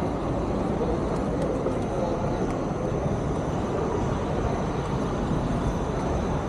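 Steady low rumbling background noise with faint distant voices.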